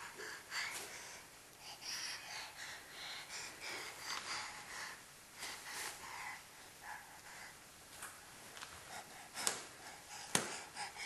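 Quiet sounds of a baby climbing wooden stairs: faint breathing and sniffs with light rustling, then two sharp taps near the end, about a second apart.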